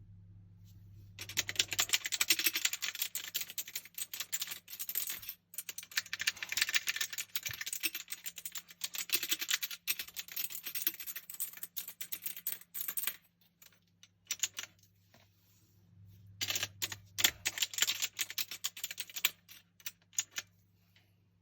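Typing on a Crack K660 104 Blue Edition mechanical gaming keyboard: a fast run of key clicks for about twelve seconds, a short pause with a few single strokes, then a second fast run of about three seconds, tapering to a few last keystrokes.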